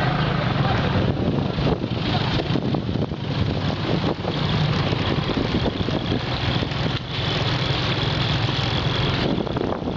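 A motor vehicle's engine running steadily with a low hum, under a constant wash of street and road noise.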